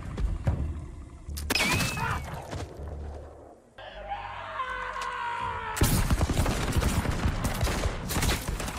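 Action-film sound effects of flintlock musket gunfire and impacts. There are a few sharp shots and hits at first, a quieter lull near the middle, and then a dense run of shots and hits from about six seconds in.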